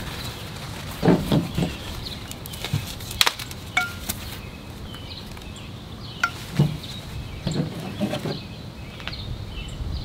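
Aluminum table-frame poles knocking and clinking against each other as they are handled and pulled from their plastic wrapping: irregular short knocks, one clink ringing briefly about four seconds in.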